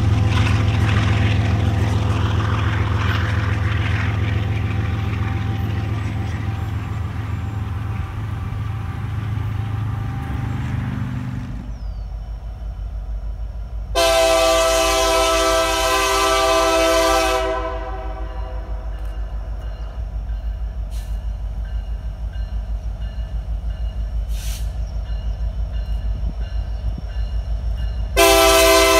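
A freight train's diesel locomotive engine drones steadily and slowly fades as the train goes by. After a sudden cut, a distant approaching CP SD70ACU diesel locomotive sounds its multi-note air horn: one long blast of several seconds about halfway through, and another starting near the end, over the low rumble of the train.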